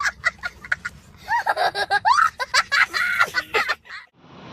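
A young child laughing hard: quick short ha-ha pulses at first, then longer laughs that swoop up and down in pitch. The laughter cuts off sharply near the end.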